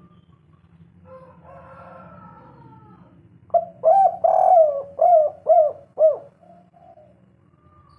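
Spotted dove (tekukur) cooing: one loud phrase of about six arched coo notes beginning about three and a half seconds in, after a stretch of faint background calls.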